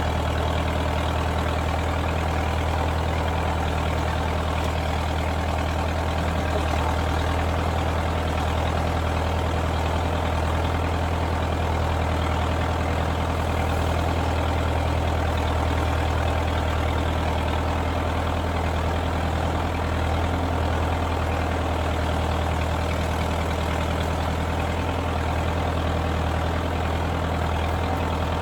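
Tractor engine running steadily at an even speed, with a strong low hum and no revving.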